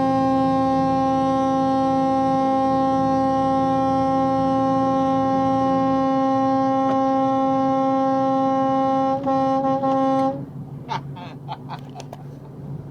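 Air horn blown in one long steady blast of about ten seconds, a single held tone that stutters briefly near the end before cutting off.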